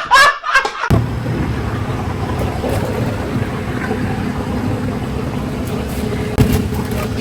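A vehicle running, a steady low engine and road rumble with a faint constant hum.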